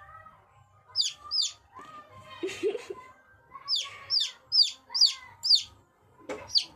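Chicks peeping: short, high, downward-sliding peeps, two about a second in, a quick run of five in the middle and one more near the end. A lower, shorter call comes between them.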